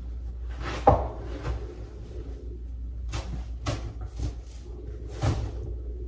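A fabric slipcover being pulled off an ottoman and shaken out: several rustling, flapping swishes, with a sharp thump about a second in, over a steady low hum.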